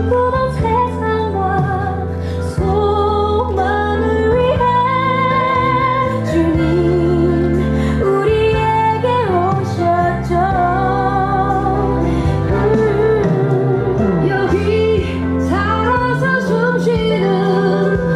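Music: a woman's voice singing a melody with vibrato over a steady instrumental backing.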